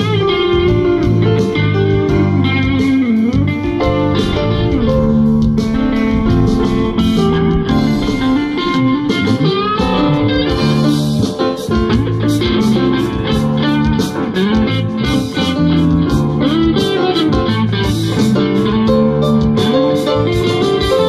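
A live band plays an instrumental break led by guitar, with bending, sliding notes over a steady bass line and drums, in a blues style.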